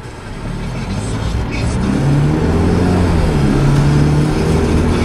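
Car engine and road noise inside the cabin, getting louder as the car pulls away from a stop and speeds up.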